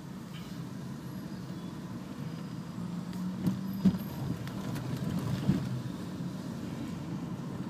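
Car driving on a wet road, heard from inside the cabin: a steady low hum of engine and tyres, with a few short knocks about halfway through.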